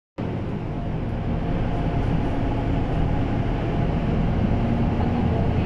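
Steady low rumble of a moving road vehicle, engine and tyre noise heard from inside the cabin, with a faint steady hum over it.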